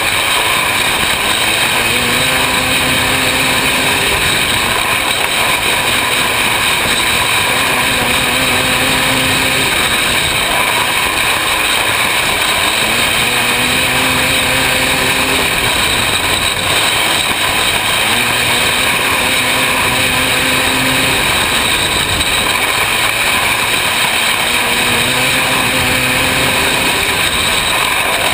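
500cc micro sprint car engine running at racing speed, heard from on board the car with a constant rush of noise. Its note swells and fades again about every five seconds as the car goes round the dirt oval.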